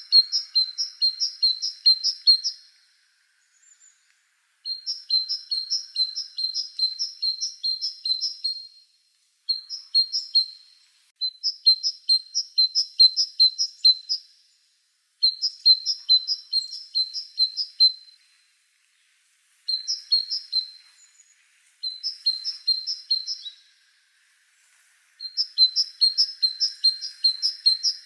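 A songbird chirping: runs of quick, high, evenly repeated chirps, each run lasting one to four seconds, with short pauses between.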